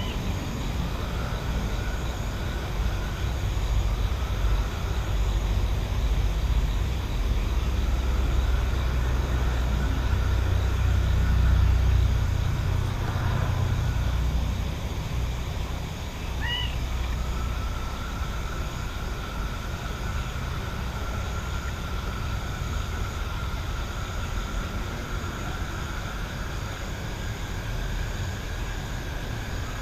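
Outdoor night countryside ambience: a low distant rumble swells to a peak about twelve seconds in and then eases off, under a faint steady high tone. One short chirp sounds about sixteen seconds in.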